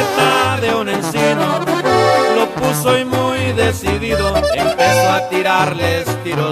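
Instrumental passage of Mexican banda music, with no singing: a band of wind instruments plays the melody over a bass line that steps from note to note.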